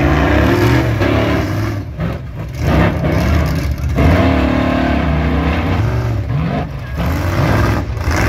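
Blue Ox monster truck's engine revving hard under load as the truck climbs over and crushes a row of junk cars, the pitch rising and falling again and again with a few brief drops in throttle.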